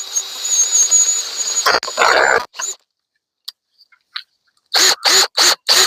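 A drill-driven 4-inch chainsaw attachment runs with a steady high whine while it cuts slowly into a branch. It stops about two seconds in with a short rough burst. Near the end a dog barks about four times in quick succession.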